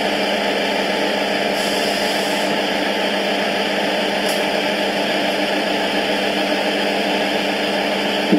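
Sound-fitted model Class 158 diesel multiple unit standing at the platform, its sound decoder playing a steady diesel engine idle through the model's small speaker. A short hiss comes about a second and a half in, and a faint click around four seconds.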